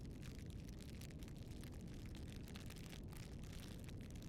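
Faint campfire burning: a low, steady rumble of flames with small irregular crackles and pops from the burning wood.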